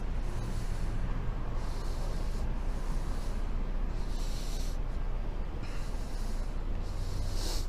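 Handling noise on a police body-worn camera's microphone: a steady low rumble with a short hiss about every two seconds.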